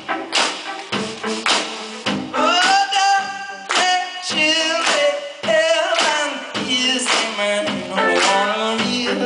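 Indie rock band playing live: drum hits, electric guitar and bass, with a man singing a melody line that comes in about two seconds in.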